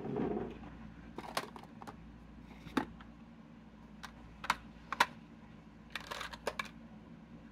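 Light, irregular clicks and taps of plastic makeup containers being picked up and set down while searching for a mascara, about eight separate knocks, the sharpest about five seconds in.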